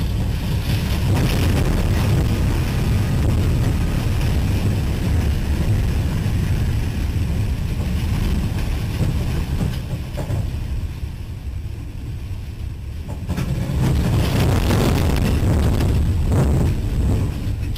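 Heavy, steady low rumble of a moving train with wind buffeting the microphone. It drops off for a few seconds about ten seconds in, then comes back.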